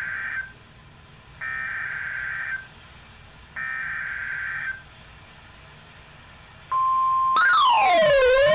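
NOAA Weather Radio EAS/SAME header: three buzzy data bursts about a second long, with short gaps between them, announcing a new alert. Near the end the steady 1050 Hz weather-radio alert tone comes on. A louder siren-like wail then joins over it, falling and rising in pitch.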